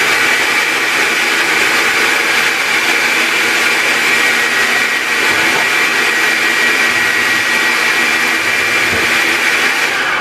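Electric food processor running steadily on its low setting, its blade whirring through basil, pine nuts and olive oil as the pesto is blended. Its motor gives a steady high whine over a loud whir.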